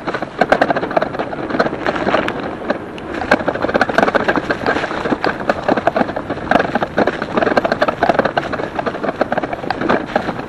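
Cheap Mongoose bike converted with a 48-volt front hub-motor kit, riding over rough grass: a continuous rattling and clattering full of rapid small knocks as the frame and rear-mounted battery are jolted. The rider puts the rattle down to the battery sitting on a flimsy rear rack.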